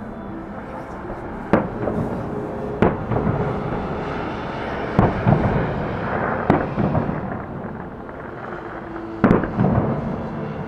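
Fireworks display: aerial shells bursting in a series of sharp bangs, several in quick pairs, with crackling between them.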